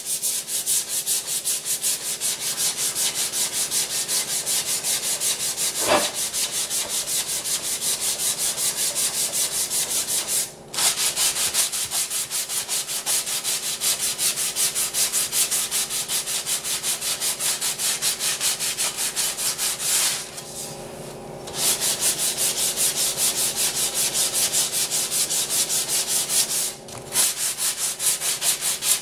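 Sandpaper rubbed back and forth by hand over fine body filler (stopper) on a mower deck, in quick even strokes of about three a second, with a few brief pauses.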